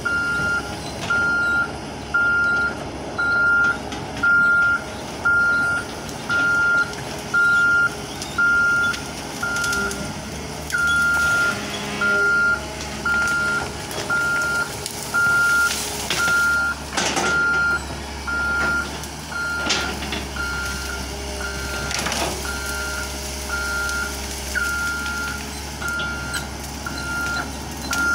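Excavator's warning alarm beeping steadily, about one and a half beeps a second, over the machine's diesel engine running. A few sharp cracks stand out in the middle.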